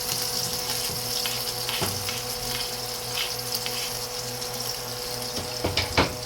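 Steady rush of water in a pot of soup, with a faint steady hum under it and a few light knocks of a utensil, the loudest near the end.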